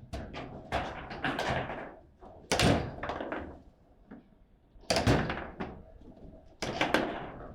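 Table football in play: the ball struck by the rod figures and banging off the table's walls, a run of sharp, irregular knocks and clacks, the loudest about two and a half and five seconds in and two close together near the end.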